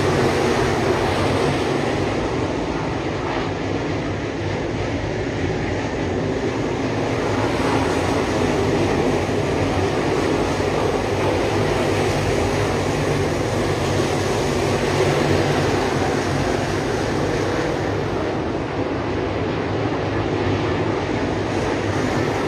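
A field of dirt late model race cars with 604 crate V8 engines running together around the track, a steady, dense, loud engine noise with no breaks.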